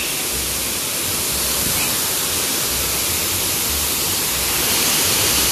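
Large waterfall pouring down a rock face into a rocky stream, a steady rush of falling water.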